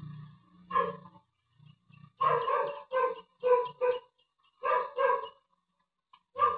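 A dog barking repeatedly: about eight sharp barks in uneven groups, with a low rumble dying away in the first moment.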